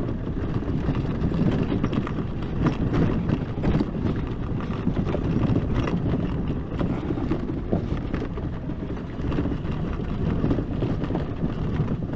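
Hecht 59399 electric ATV riding over a bumpy dirt road: tyre and road noise with frequent short knocks and rattles as the stiff suspension takes each bump, and wind buffeting the microphone.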